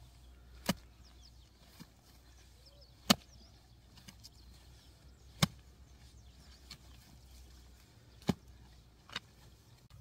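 Long-handled hoe chopping into the soil of an earth bank: four sharp strikes a couple of seconds apart, then a weaker fifth strike near the end.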